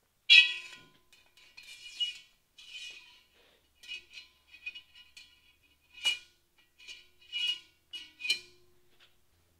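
Wire bail handle clinking and scraping against the rim and lugs of a cast iron pot, the pot ringing briefly after each knock. A sharp clang comes just after the start, then a string of lighter, irregular clinks and scrapes.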